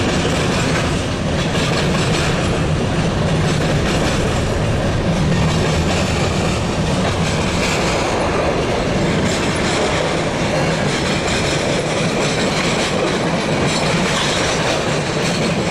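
A freight train's cars rolling past close by, the wheels clicking over rail joints in a continuous loud rumble.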